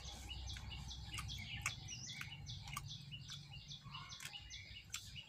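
Small birds chirping busily, many short high notes repeating and overlapping, with a few sharp clicks scattered through and a low steady rumble underneath.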